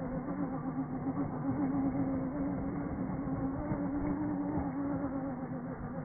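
Small radio-controlled truck's motor running steadily with a slightly wavering hum as the truck spins donuts, its tyres scrubbing on concrete.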